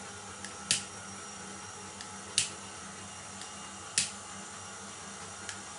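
Handheld butane lighter's igniter clicking as candles are lit: three sharp clicks about a second and a half apart, with a couple of fainter clicks between, over a faint steady hum.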